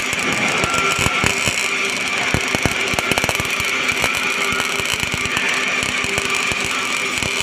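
MIG (gas metal arc) welding arc crackling steadily and unevenly as the wire feeds into a pipe root pass.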